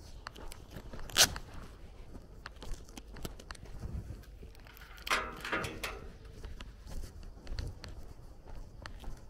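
Footsteps on a gravel lane, with a sharp click about a second in and a short pitched sound lasting under a second around five seconds in.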